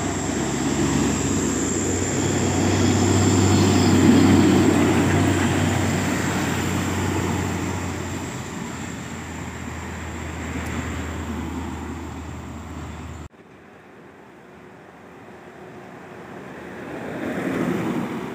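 Diesel trucks loaded with sugarcane passing, their engines running with a steady low hum; loudest about four seconds in, then fading as they pull away. After an abrupt cut near the end, another truck's engine comes closer and grows louder.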